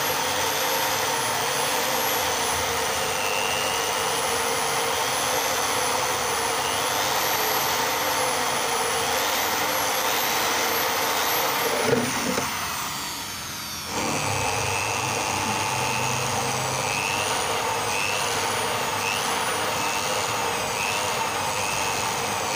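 Electric drill running steadily as it bores string holes through a repaired graphite badminton racket frame, its high whine wavering as the bit bites. About halfway through it winds down briefly, then starts up again.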